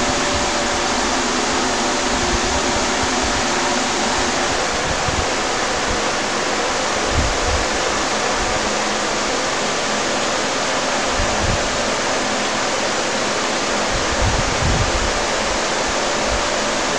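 Steady, loud hiss throughout, with a few dull low bumps from the hand-held camera being moved.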